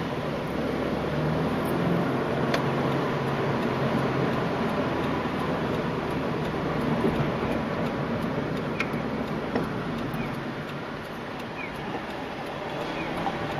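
Car engine and tyre noise heard from inside the cabin while driving through city traffic, steady with a low hum and a few faint clicks.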